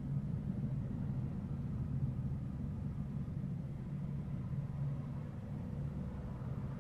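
Steady low rumble of tunnel ambience, with a faint hum above it and no distinct events.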